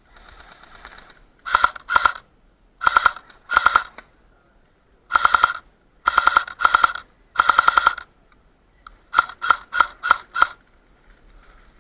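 Dytac MB47 electric airsoft rifle firing several short full-auto bursts, then five quick single shots near the end.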